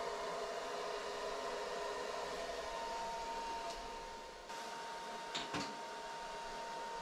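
Steady whirr of the powered-on BGA rework station's cooling fans: an even hiss with a few held hum tones. It changes abruptly about four and a half seconds in, and a couple of soft clicks follow.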